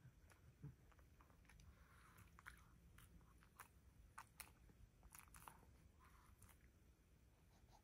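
Faint crunching of a Shih Tzu chewing small dry treats: a scatter of short, crisp crunches and clicks, several in a row around the middle.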